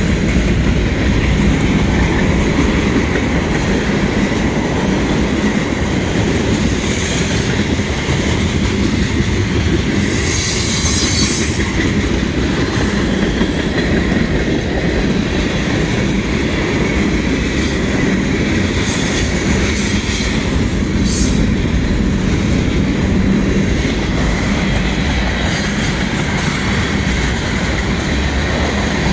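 Freight train cars rolling past close by: a loud, steady noise of steel wheels on the rails, with short high-pitched wheel squeals breaking in several times.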